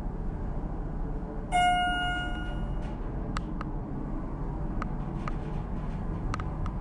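Schindler hydraulic elevator cab riding down with a steady low hum. A single chime rings about a second and a half in and fades over about a second, followed by several short sharp clicks.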